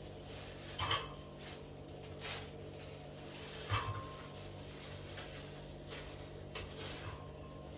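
Kitchen utensils knocking and clinking against dishes: a few separate light knocks, one about four seconds in leaving a short ring.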